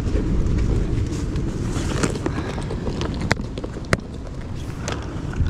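Wind rumbling on the microphone over the surf of an ocean beach, with a few sharp clicks.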